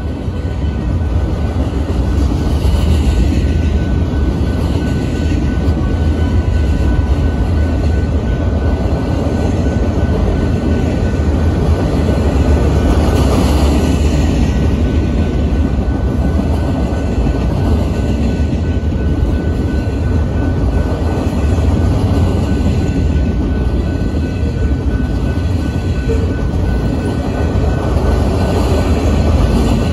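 Freight train of flatcars loaded with large steel pipe rolling steadily past, a continuous loud rumble of wheels on rail, with a faint steady high tone running through it.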